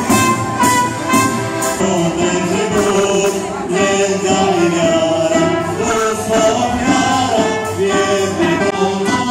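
Folk band of trumpet, violin, accordion and drum playing a Christmas carol, with voices singing the melody over a steady drumbeat.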